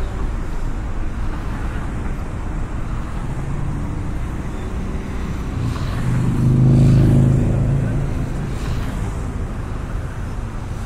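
City traffic: steady road and engine noise of cars driving by, with a deeper engine rumble swelling and fading around the middle as a vehicle passes close.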